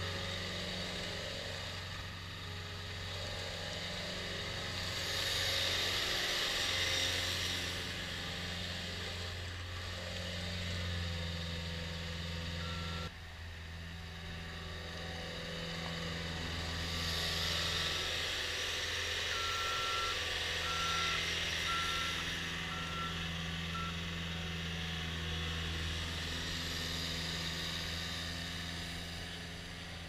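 Cat 242B3 skid steer's diesel engine running and swelling as the machine drives and turns. Its reverse alarm sounds with five short beeps about a second apart, a little past the middle.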